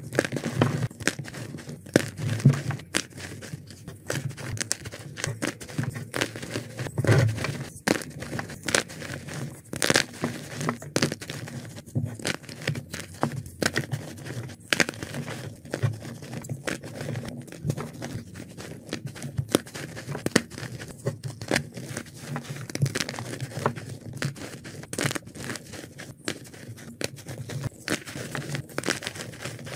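Hands crushing and crumbling blocks of white and dyed gym chalk: a continuous run of irregular crunches and crackles as the chunks break, with soft powdery rustling between them.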